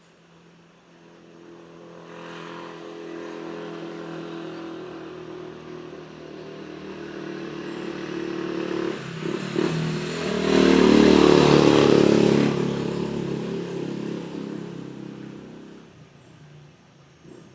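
A motor vehicle's engine approaching and passing, growing louder to a peak about eleven seconds in and then fading away.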